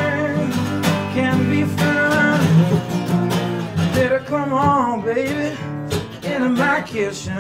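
Steel-string acoustic guitar played bottleneck style with a glass slide in an instrumental blues passage. Sliding notes glide up and down over steady picked bass notes.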